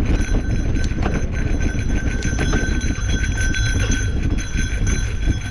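Mountain bike riding over dirt singletrack: fast, continuous rattling and clicking from the bike on the rough trail, with a steady high buzz. Heavy wind rumble on the camera microphone.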